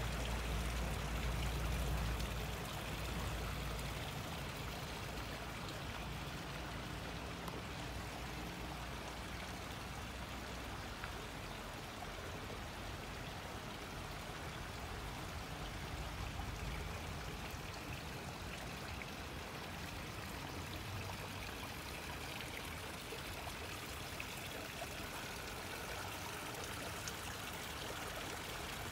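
Small woodland brook trickling and running steadily, with a low rumble for the first few seconds.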